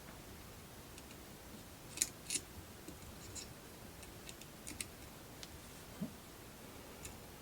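Light, sharp clicks and ticks of small metal parts and tools being handled while a battery clip is fitted to a kit's circuit board. The clicks come irregularly, the loudest pair about two seconds in.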